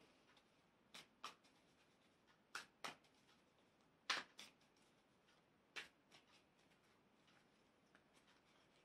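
Tarot cards handled while a card is drawn: a few short, soft card clicks, mostly in pairs, with near silence between them.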